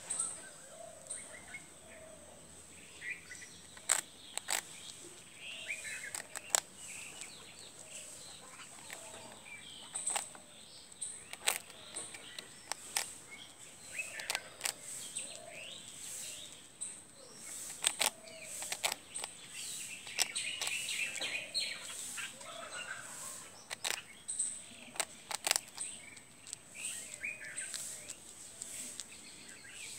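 Birds chirping in the background, with scattered sharp crunches from an animal biting and chewing hard toast. A faint steady high-pitched whine runs underneath.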